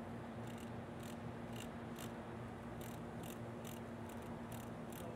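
Detented rotary decade knobs on a Multi-Amp capacitance and dissipation-factor test bridge clicking step by step, about twice a second, as the capacitance setting is backed off while balancing the bridge. A steady electrical hum runs underneath.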